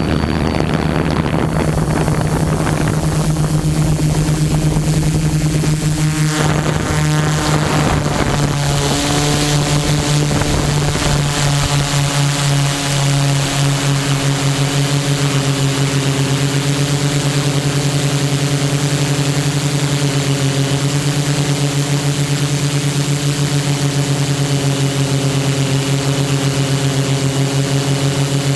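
Brushless motors and propellers of an HMF U580 quadcopter, recorded by the camera on board: a steady buzzing hum of several pitches over a hiss. The pitch shifts about six to eight seconds in, then holds steady.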